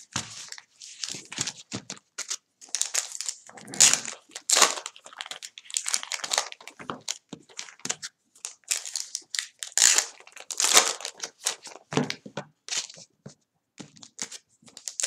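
Wrappers of sealed baseball card packs crinkling as the packs are handled and stacked, in irregular rustling bursts.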